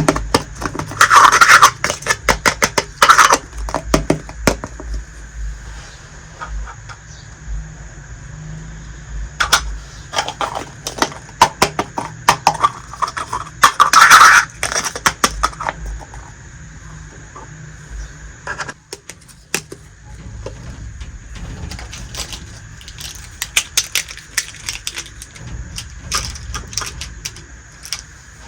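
Small hard toy pieces being handled: rapid runs of clicks, taps and light scrapes, loudest in two bursts, one a second or so in and another about halfway through.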